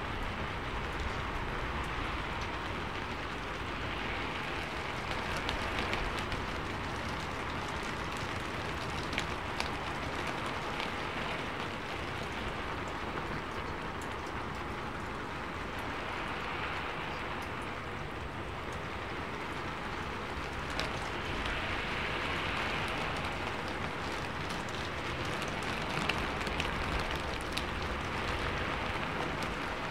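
Steady rain, with scattered ticks of drops, swelling and easing every few seconds.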